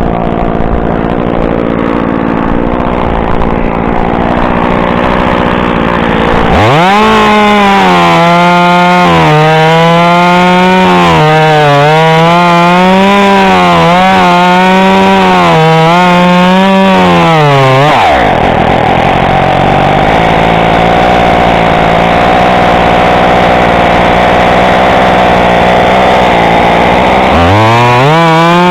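Echo CS-2511T top-handle two-stroke chainsaw cutting wood. It runs steadily at first, then revs up about six seconds in, its pitch wavering as the chain bites for about eleven seconds. It then drops back to a steady run and revs up again near the end.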